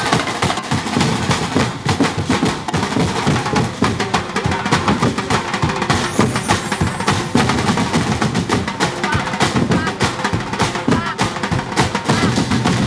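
Festival percussion band drumming a fast, dense beat on drums and other percussion, with voices shouting over it.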